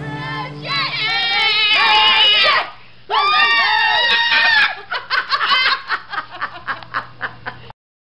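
Two high-pitched vocal outbursts with pitch sliding up and down, then laughter in quick pulses of about four a second that cuts off abruptly near the end.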